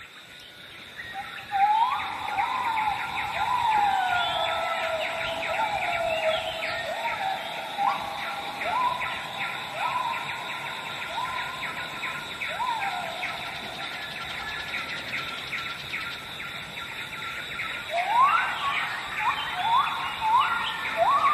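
Birds calling: repeated whistled notes that swoop up or down in pitch, over a dense chatter of rapid chirps and a steady high tone. The swooping calls pause for a few seconds past the middle and return near the end.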